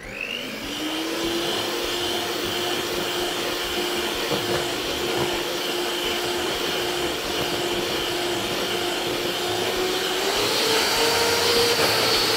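Electric hand mixer whirring up to speed and running steadily, its twin beaters whipping egg whites into meringue in a stainless steel bowl. Its pitch steps up about ten seconds in as the motor speeds up.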